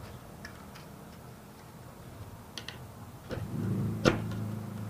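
Scattered light metallic clicks and ticks as a thin flat tool pushes the edges of expanded metal mesh into a metal frame, with one sharper, louder click about four seconds in. A low steady hum comes in shortly before that.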